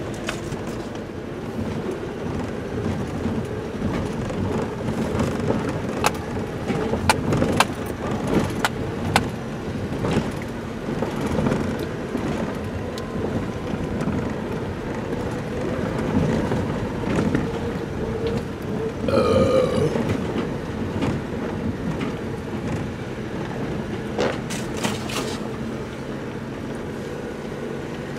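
Toyota truck driving slowly over a rough dirt track, heard from inside the cab: the engine runs steadily under the crunch of tyres, and sharp knocks and rattles come as the body jolts over ruts, a cluster of them about a quarter of the way in and another near the end.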